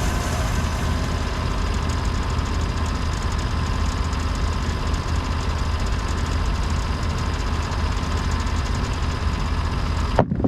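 Portable bandsaw sawmill's engine running steadily, cutting off abruptly just before the end.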